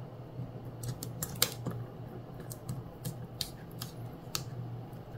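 Origami paper crinkling and crackling as fingers press and crease a squash fold, a scatter of short, faint crackles.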